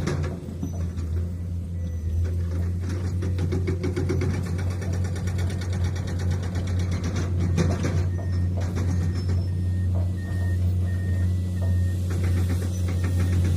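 Heavy diesel construction machinery running steadily with a deep engine hum. A rapid clattering rhythm runs for several seconds, and short high beeps repeat in the second half.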